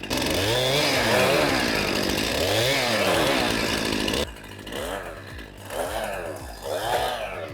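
Gasoline chainsaw revving hard, its pitch rising and falling, for about four seconds before cutting off suddenly. It is followed by quieter, separate blips of the throttle, about one a second.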